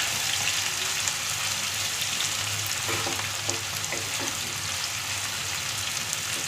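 Finely chopped onions frying in hot oil with cumin, being browned to golden: a steady sizzle with scattered crackles, and a spatula stirring the pan now and then.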